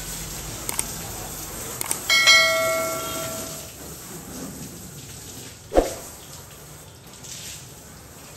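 A single bell-like chime, struck about two seconds in and ringing out for about a second and a half over a steady hiss. A few light clicks come before it, and a sharp thump falls near the end.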